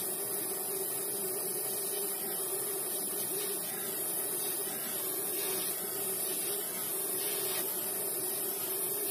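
Steady hissing noise with a faint hum underneath, unchanging in level.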